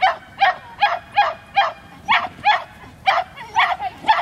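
Dog barking rapidly and repeatedly, about two to three sharp barks a second, without a break.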